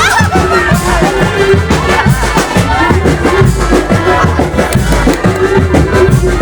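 Loud music with a fast, steady beat.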